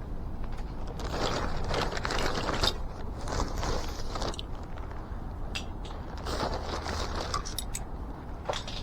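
Rummaging through a cluttered tool bag: loose metal tools clinking and scraping against each other among rustling plastic bags, in irregular bursts.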